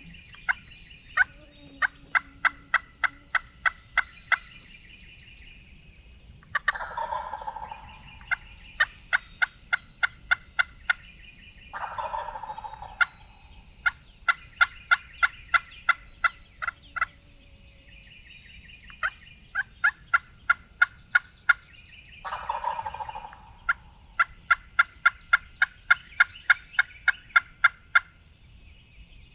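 Wild turkey gobbler gobbling three times, each gobble a rattling call about a second long. Between the gobbles run long series of sharp, evenly spaced notes, about three a second, from another bird.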